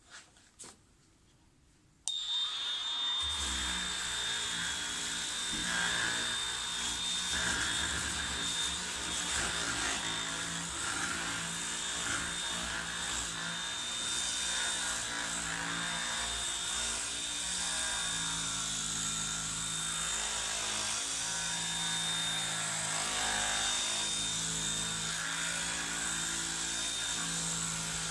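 Cordless Ozito 18V random orbital sander switched on at its lowest speed, 1, about two seconds in, then running steadily with a high whine while sanding wood with 240-grit paper.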